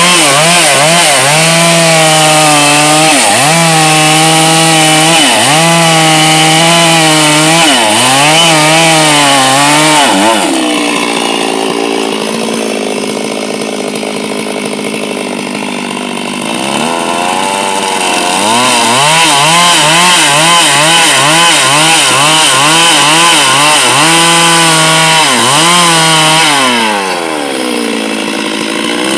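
Two-stroke chainsaw revving in repeated surges while cutting wood. It drops to a quieter, steady idle for several seconds in the middle, then revs in quick pulses and surges again before falling back to idle near the end.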